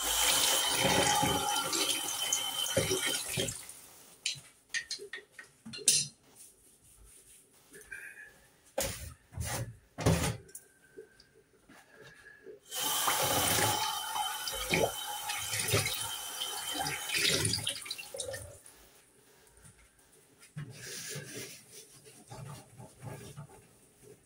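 Kitchen tap running into a sink in two spells, about three seconds and then about five seconds. Between them come several sharp knocks and clatters of utensils.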